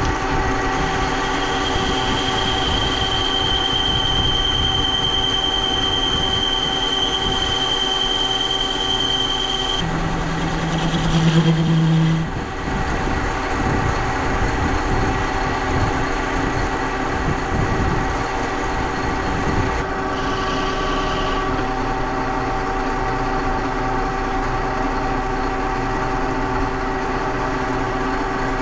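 Metal lathe running steadily while machining a rod into a threaded bushing. A high steady whine is heard for about the first ten seconds, and a short, louder low hum comes about ten seconds in.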